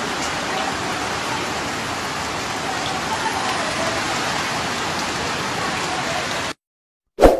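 Steady rain falling on a roof of roofing sheets, an even hiss with no let-up. Near the end it cuts off suddenly and a brief loud hit follows.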